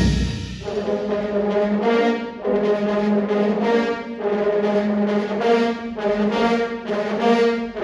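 Marching band brass section playing sustained chords, in phrases that swell and break off about every two seconds.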